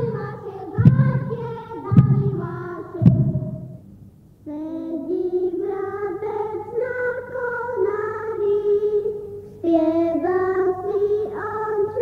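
Folk carol singing by a group of carollers, with a heavy thump about once a second, typical of shepherds' staffs knocked on the floor, stopping about four seconds in. After a brief pause a new carol starts, sung by high voices.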